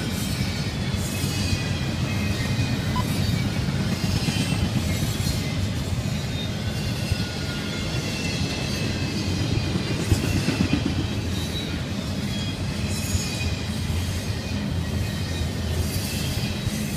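A double-stack intermodal freight train's well cars rolling past, a steady rumble of wheels on rail. Faint, wavering high squealing tones come from the wheels throughout.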